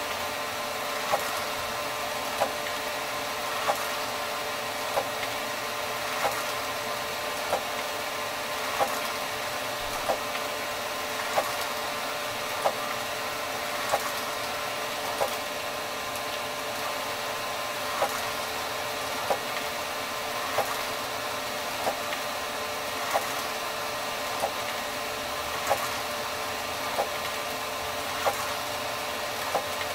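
ENCAD NovaJet 750 wide-format inkjet printer printing: a steady mechanical whirr, with a sharp click repeating evenly about every one and a quarter seconds.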